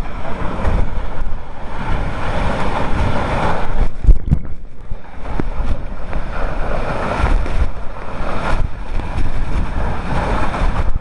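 Waterfall's falling water rushing loudly and steadily, with gusts of wind and spray buffeting the microphone and a hard low thump about four seconds in.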